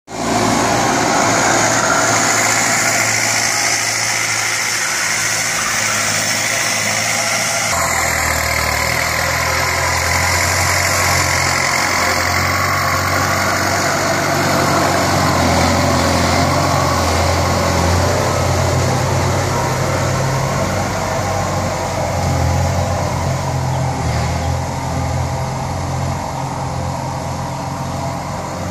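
Kubota M5000 tractor's diesel engine running steadily and loud while it works, pushing dirt with its front blade. About eight seconds in, a deeper, steady engine drone takes over.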